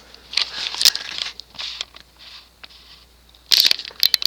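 Crinkling, rustling handling noise in irregular short bursts, the loudest cluster about three and a half seconds in.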